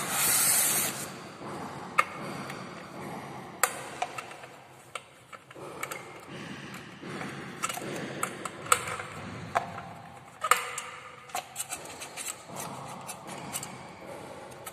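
Screwdriver working the screws on an Usha ceiling fan's motor plate, with scraping and rubbing as the screws and fan parts are handled and scattered sharp metal clicks, a few of them louder.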